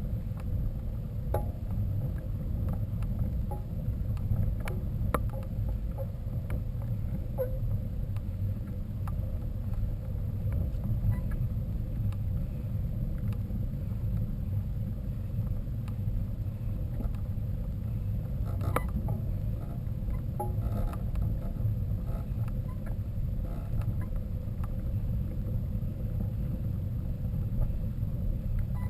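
Steady low rumble of wind buffeting the microphone of a camera riding along on a mountain bike, with scattered light clicks and rattles from the bike over rough ground.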